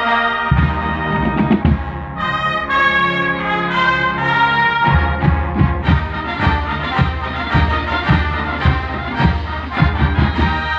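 Marching band playing, brass carrying the melody in sustained chords. About halfway through, a steady drum beat comes in under the horns.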